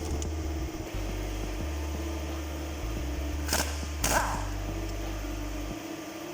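Steady mechanical hum, like a fan, with two sharp knocks about half a second apart a little past the middle.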